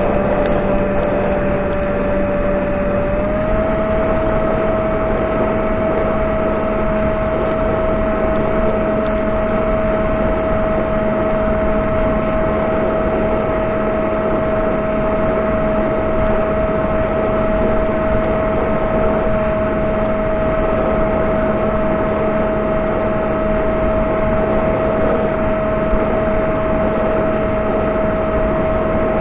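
Electric motor and propeller of an S800 Reptile flying wing, a steady whine heard from the onboard camera over rushing airflow. The pitch steps up slightly about three seconds in, then holds level.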